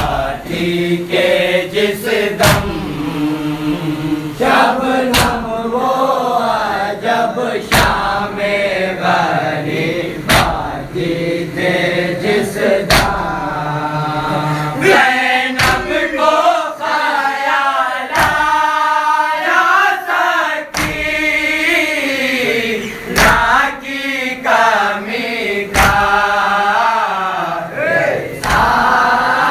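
Group of men chanting a Shia noha, a lead reciter's voice with the others joining in chorus, over sharp unison chest-beating (matam) slaps that land about every two and a half seconds.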